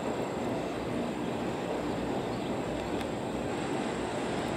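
Container cars of a CSX double-stack intermodal train rolling across a steel girder bridge: a steady rumble of wheels on rail.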